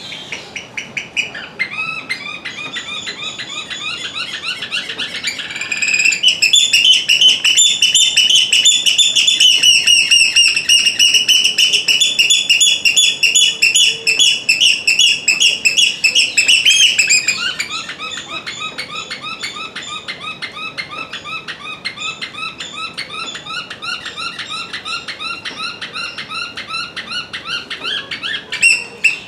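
Eurasian oystercatchers calling shrilly: a fast, unbroken run of piping notes. The calling swells louder and fuller about six seconds in, then drops back to a lighter, steady run of notes at about seventeen seconds.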